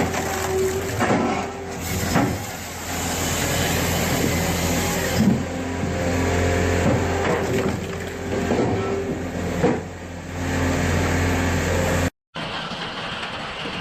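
Log splitter machinery running with a steady engine hum, with irregular knocks and clatter of wood. Near the end it cuts off abruptly and a quieter, different machine sound follows.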